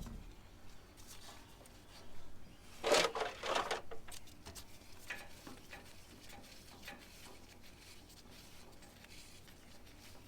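Hand handling of tools and parts during a tractor oil-filter change: a short burst of scraping and clatter about three seconds in, then faint knocks and rubs.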